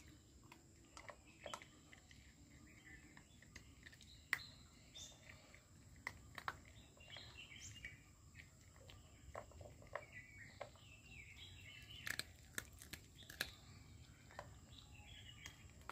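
An Indian Spitz puppy crunching dry dog food from a stainless steel bowl: quiet, scattered crisp crunches and clicks, a few sharper than the rest. Birds chirp faintly in the background.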